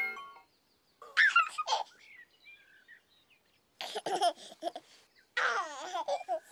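Baby giggling and babbling in short bursts: about a second in, around four seconds in, and again shortly after five seconds. A children's tune stops just as it begins.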